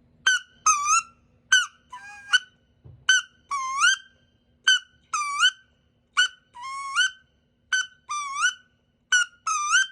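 Duck Commander Woody wood duck call blown in a repeated two-note whistle, imitating a wood duck. Each call is a short sharp note followed by a longer squealing note that dips and then rises in pitch, and it comes seven times, about every second and a half.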